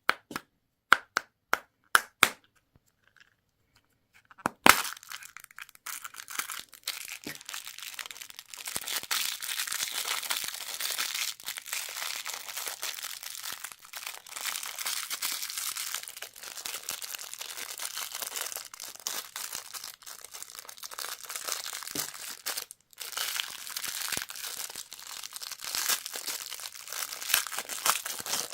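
A candy wrapper being crinkled and torn open by hand. A handful of sharp clicks open the sound, then a louder crack, then steady crinkling of the wrapper that pauses briefly about three-quarters of the way through.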